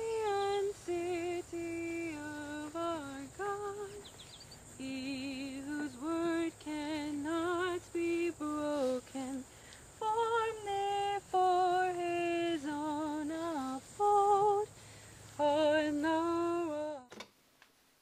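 A woman's voice singing a slow hymn melody unaccompanied, in several phrases with short pauses between them, cut off abruptly near the end.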